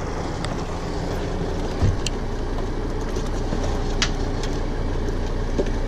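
Boat engine running steadily with a low drone, mixed with wind and water noise, a low thump about two seconds in and a few light clicks.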